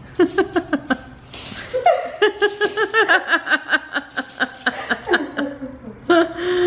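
A woman laughing in two runs of quick, repeated 'ha' pulses: a short run at the start, then a longer one after about a second's pause, ending with a brief held vocal sound.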